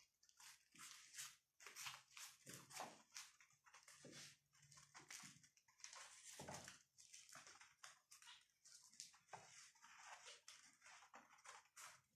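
Faint, irregular scratching of a kitten digging in cat litter in a plastic litter tray.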